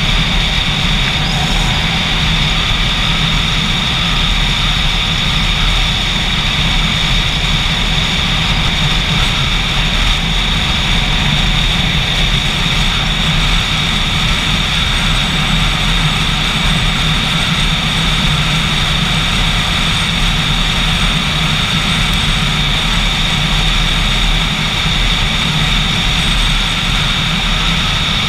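Motorcycle running steadily while underway: a constant low engine drone with a steady hiss over it, unchanging throughout.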